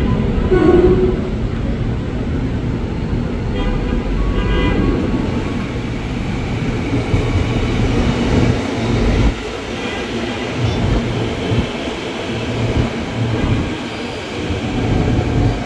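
Former Tokyo Metro 6000 series electric commuter train pulling in alongside the platform, its wheels rumbling steadily on the rails. The sound eases a little past halfway as the train slows.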